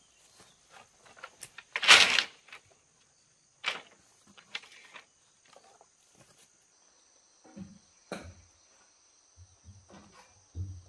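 Insects chirring steadily in a high, thin band, over scattered knocks and clatter, the loudest about two seconds in and another near four seconds.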